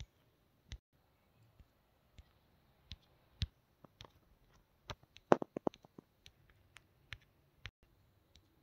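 Scattered clicks and light knocks of a cardboard gift box and small juice cartons being handled and set down, with a quick run of clicks about five seconds in.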